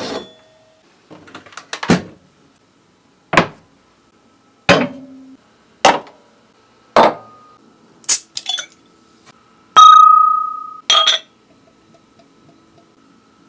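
A series of sharp clinks and knocks of metal and glass objects, about one a second. One strike near the end rings on briefly with a clear tone.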